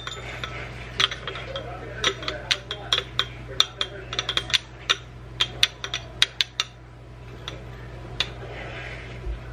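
Glass mason jar clinking against a stainless steel measuring cup as brown sugar is shaken out of it into the cup: a rapid run of sharp, ringing clinks for several seconds, then one more near the end.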